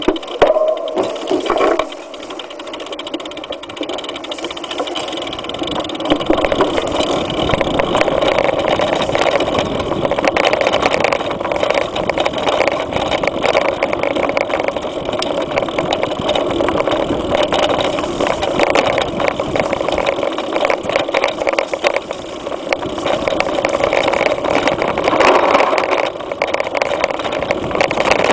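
Mountain bike riding fast over a rough dirt trail, picked up by a camera mounted on the bike: a dense, continuous rattle and clatter of the bike and mount over bumps, with tyre noise on the dirt.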